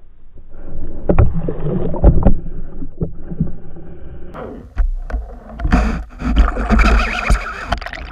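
Rushing water noise and sharp knocks picked up underwater as the camera moves and tumbles through lake weed, loudest in the second half.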